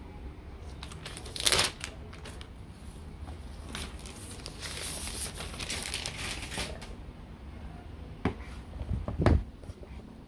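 A laptop's thin protective cover sheet being crinkled and peeled off a new MacBook Air, with a sharp rustle about a second and a half in and a longer crinkling stretch in the middle. Near the end there is a light knock, then a heavier thump as the laptop is handled and lifted against its cardboard box.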